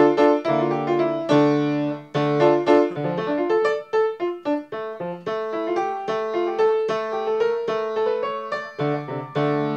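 Grand piano being played solo: struck bass chords repeating under a melody moving above them.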